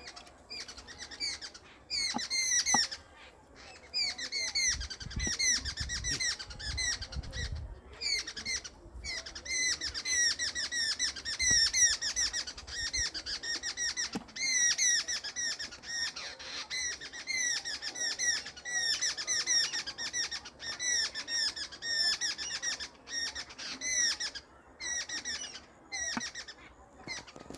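Birds chirping: a fast, nearly unbroken series of short, high, bending notes from about two seconds in, with brief gaps.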